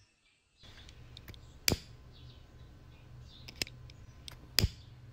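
Dry wood-shaving tinder being lit and catching fire: a steady rush of flame with several sharp crackles and pops, the loudest near the middle and just before the end.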